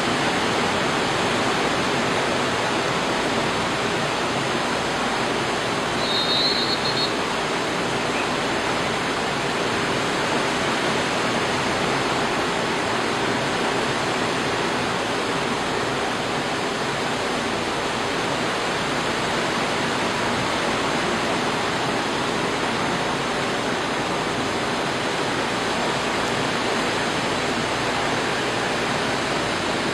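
Steady, even roar of rushing water.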